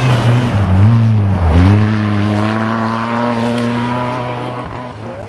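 Ford Fiesta ST rally car driving past at speed. Its engine note dips sharply about a second and a half in, then climbs and holds high as the car pulls away and fades near the end.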